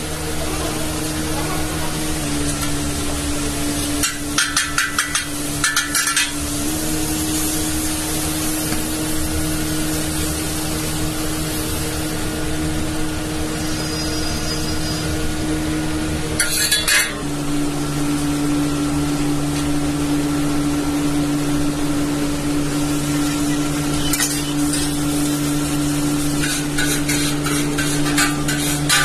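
Pav buns sizzling as they toast on a flat iron street-food griddle (tawa), under a steady low hum. Clusters of quick metal taps and scrapes, a spatula working on the griddle, come a few seconds in, just past halfway, and again near the end.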